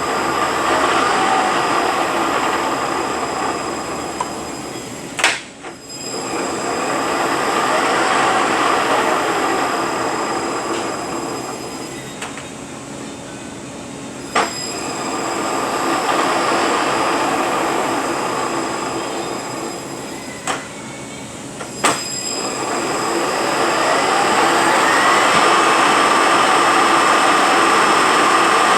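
Rebuilt Eaton Fuller RTO-14908LL truck transmission running on a dyno test stand, its gears whining as the speed rises and falls in about four long swells, with a few sharp clicks between the swells.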